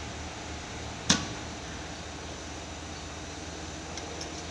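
Steady background hum of an industrial sewing room, with one sharp click about a second in and a few faint ticks near the end; no run of stitching is heard.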